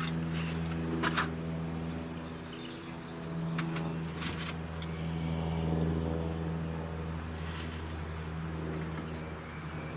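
A steady engine drone with an even low hum that swells around the middle and eases off again, with a few light clicks and knocks as a box of screws and small parts are handled and set down.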